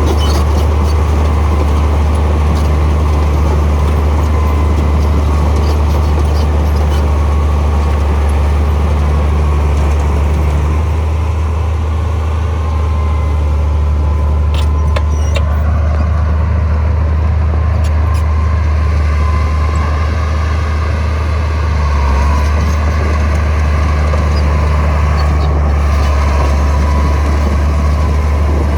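Heavy diesel earthmoving machinery running steadily, a loud low engine drone with machine noise over it and a faint wavering whine.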